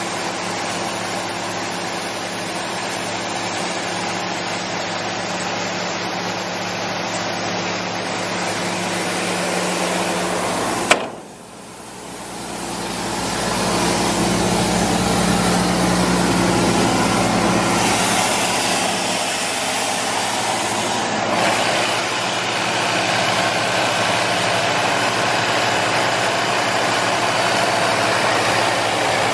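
Cummins diesel engine of a 2008 Doosan 9/300 air compressor running steadily. About eleven seconds in there is a sharp click and the sound drops away, then builds back up over a few seconds to a slightly louder steady run.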